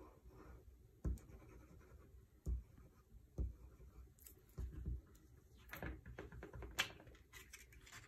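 Tip of a liquid glue bottle rubbing and dabbing across the back of a paper panel, a faint scratching with soft knocks about four times in the first five seconds. Near the end, paper rustling and scraping as the glued sheet is picked up and handled.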